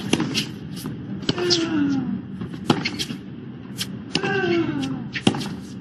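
Tennis rally: racquets striking the ball five times, about every second and a half, with a short falling grunt from a player after two of the shots.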